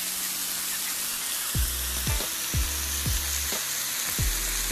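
Marinated chicken pieces sizzling on a hot teppanyaki grill cooked without added oil, a steady hiss of frying. About a second and a half in, music with a deep drum beat, about two beats a second, comes in under the sizzle.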